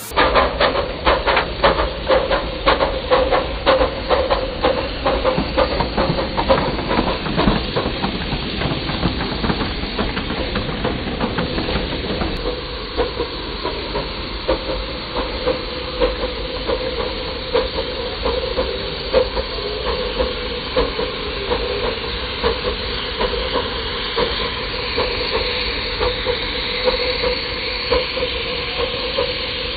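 Miniature live-steam locomotives on 5-inch gauge track working under steam: quick, sharp exhaust chuffs over steam hiss for about the first dozen seconds, then a steadier hiss with fainter beats.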